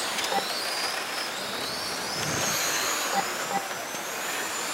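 Several 1/10 electric touring cars with 21.5-turn brushless motors racing on the track. Their thin, high-pitched motor whines rise and fall and overlap as the cars speed up and slow down, over a steady hiss.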